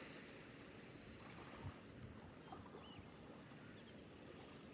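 Faint outdoor ambience with insects trilling: short repeated high trills and a steadier, even higher pulsing trill over a low hiss.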